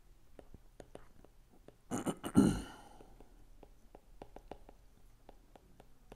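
Stylus tapping and clicking on a tablet's glass screen during handwriting: many small sharp ticks. About two seconds in comes a brief, louder breathy noise lasting under a second.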